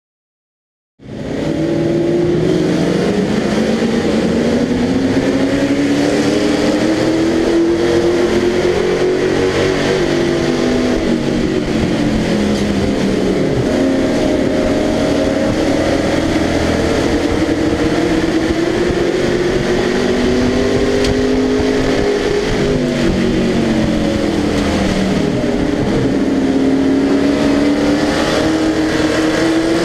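Pro Truck stock-car racing engine heard from inside the cab, starting about a second in and running hard throughout. Its note rises and falls in long swells, about every ten to twelve seconds, as the throttle comes on and off.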